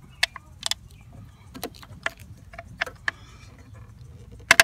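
Hand tools and car parts being handled: a series of scattered sharp clicks and knocks, the loudest a double crack near the end.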